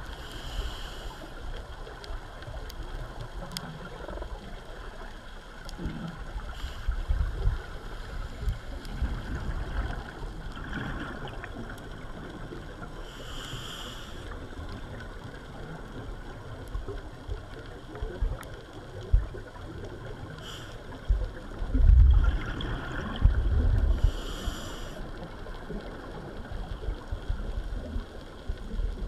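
Underwater sound of a scuba diver's regulator breathing: a few short hissing inhalations and irregular rumbling gurgles of exhaled bubbles, the loudest bubble bursts near the end.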